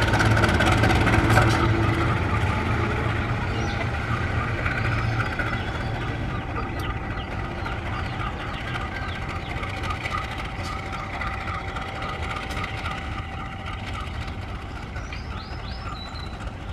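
KAI diesel locomotive engine running with a steady hum that slowly fades. A few short chirps come near the end.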